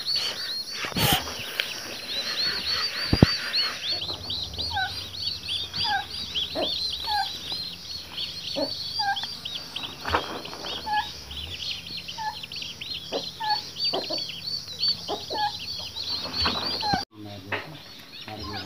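Birds chirping rapidly and continuously, with a second short call repeated about once a second through the middle, and a few sharp knocks. The sound drops suddenly near the end at a cut.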